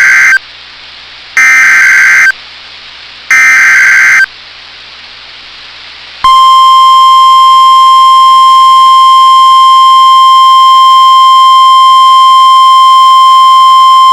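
NOAA Weather Radio EAS alert start: three loud, raspy digital data bursts of the SAME header, each about a second long and a second apart. About two seconds after the last burst comes the steady single-pitch 1050 Hz weather-radio warning alarm tone, which signals that a warning message follows.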